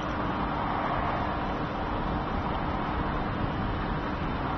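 Popcorn vending machine running while it cooks a cup of popcorn: a steady hum under a constant rush of air.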